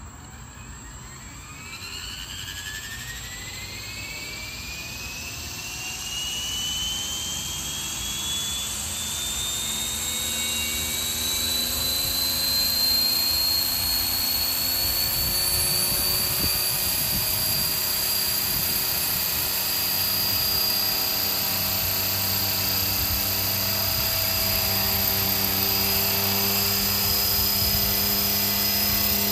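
450-size radio-controlled CH-46 tandem-rotor model helicopter spooling up: a motor whine rises in pitch over the first dozen seconds while the rotor noise grows louder, then both run steadily at speed.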